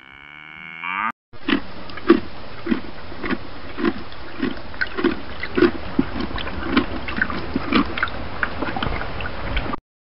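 A cow mooing with its pitch rising, cut off just over a second in. Then a horse grazing: crunching as it crops and chews grass, nearly two strokes a second, over a steady hiss.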